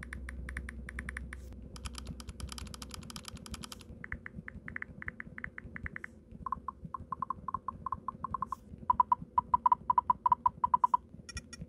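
Samsung Keyboard touch sounds on a Galaxy Note 10, played through a series of Keys Cafe touch-sound presets: runs of quick key taps, several a second, the sound changing every two seconds or so. The early presets give sharp clicks; the later ones give short pitched beeps, loudest near the end.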